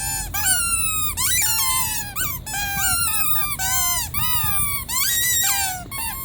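Rubber squeaky toy being squeezed over and over: a quick string of high squeaks, about two a second, many sliding down in pitch as the air runs out.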